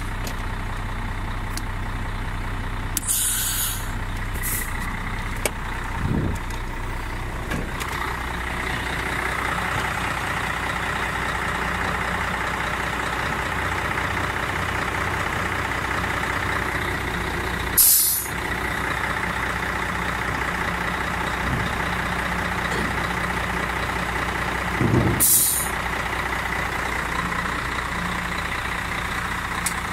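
Volvo FH12 dump truck's 12-litre six-cylinder diesel running steadily while its hydraulics tip the body up, with three short hisses of compressed air along the way.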